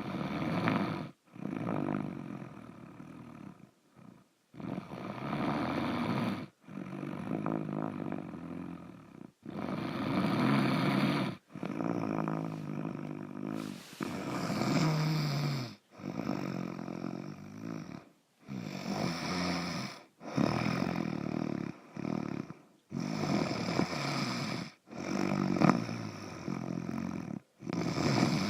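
Snoring, heard on every breath both in and out: a rough, pitched sound about two seconds long on each breath, with only brief pauses between.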